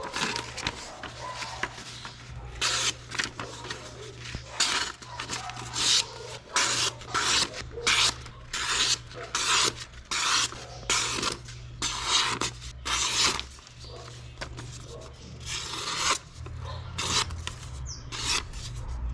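Repeated back-and-forth hand strokes of abrasive rasping on a knife in the making, about one to two strokes a second with short pauses between runs.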